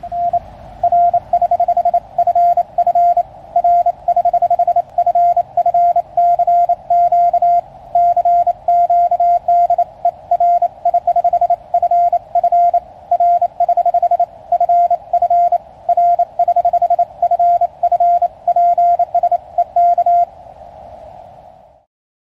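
Morse code (CW) from a QRP Labs QCX-mini CW transceiver: a single beep tone keyed on and off quickly in dots and dashes, spelling out a CQ call. It stops about two seconds before the end, leaving a brief faint hiss.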